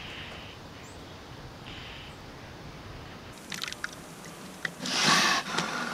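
Faint wind over sea ice, then, after a cut, water clicking and sloshing in a seal's breathing hole in the ice, with a loud rushing gush about five seconds in as a harp seal comes up through the hole.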